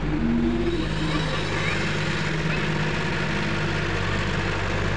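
Caterpillar E108 excavator's diesel engine running steadily as the machine swings its boom around, with a brief higher tone near the start.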